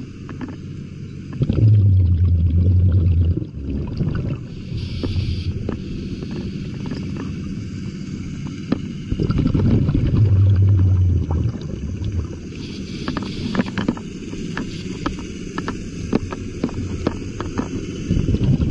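Scuba diver breathing through a regulator underwater: loud bubbling exhalations with a low rumble about every eight seconds, three in all, with a short hissing inhale between each, over a steady crackle of water noise.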